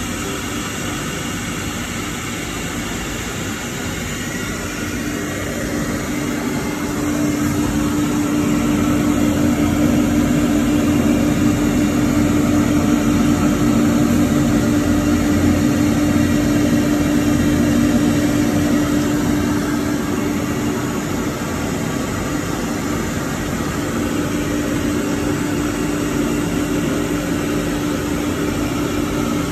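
Four-head 1325 CNC wood router running, a continuous machine noise with a steady tone; it grows louder about seven seconds in and eases off again after about twenty seconds.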